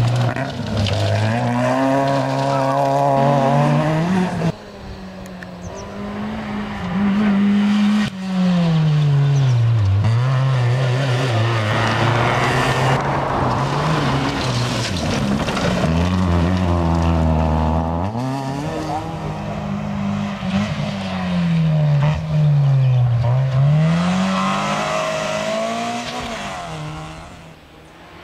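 Rally car engines revving hard on a dirt stage, the pitch climbing and dropping again and again through gear changes and lifts. Several cars pass in turn with abrupt cuts between them, and the last one fades away near the end.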